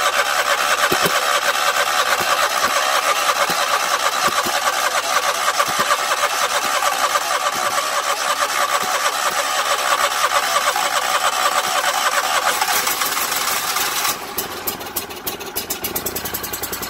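Briggs & Stratton Vanguard V-twin engine on a Scag Turf Tiger mower running strongly just after starting on a hand-primed fuel bulb, then dropping to a lower, slower idle near the end. It starts only because it was primed by hand: the fuel pump fails to lift fuel back from the tank after the mower sits.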